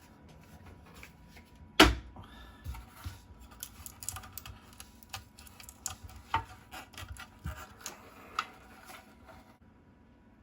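Hands and tools working at a stuck battery box on an electric bike: one loud knock about two seconds in, then a run of small clicks and taps that stops near the end.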